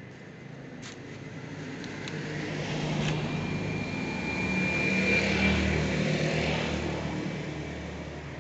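Motorbikes passing on the road, engine sound swelling to a peak about five seconds in and then fading away.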